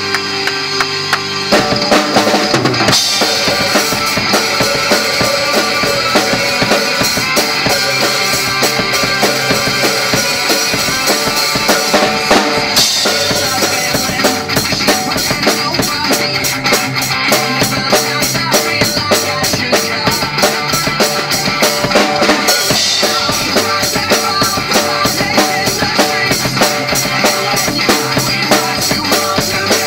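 Drum kit played along with a recorded rock song: the drums come in about a second and a half in, with kick, snare and fast cymbal strokes over the music.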